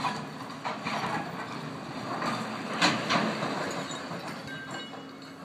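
Rubble from a two-storey hotel being demolished, crashing and rattling down in a run of sudden crashes, the loudest about three seconds in, over a steady low hum.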